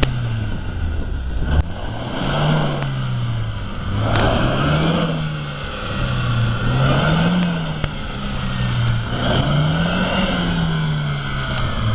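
Chevrolet Niva engine revving up and falling back repeatedly, about five rises in a row with a rushing noise swelling on each one. This is a stuck off-roader being rocked back and forth in place, trying to work free.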